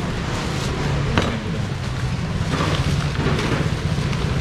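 Steady low rumble of background noise with a sharp knock about a second in and a few fainter clicks.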